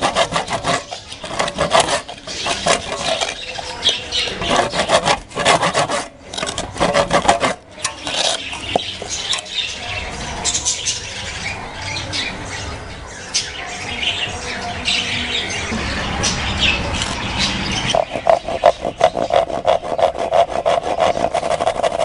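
Hand saw cutting through a bamboo tube in quick back-and-forth strokes. The sawing breaks off partway through and starts again with fast strokes near the end.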